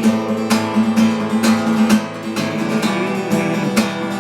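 Guitar strummed in a steady rhythm, about two strums a second.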